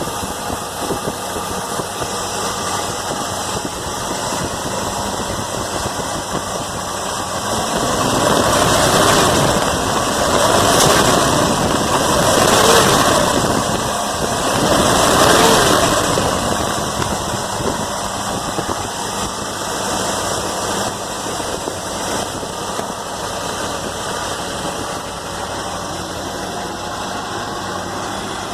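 Car engine running on a freshly rebuilt Holley 670 Street Avenger four-barrel carburetor, not yet adjusted, on its first start. It idles, is revved up and back down about three times from about eight to sixteen seconds in, then settles back to a steady idle.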